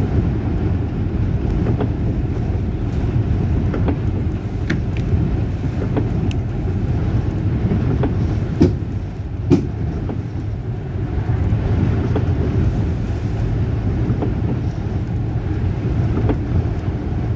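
A city bus in motion: a steady low engine and road rumble, with two sharp knocks a little under a second apart about halfway through.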